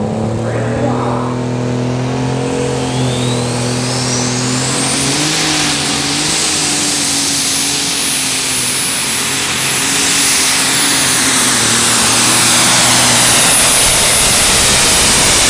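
Unlimited super stock pulling tractor's turbocharged diesel engine running hard under load on a pull. A few seconds in, a high turbo whistle rises in pitch and then holds steady and loud, and the engine grows louder in the later part.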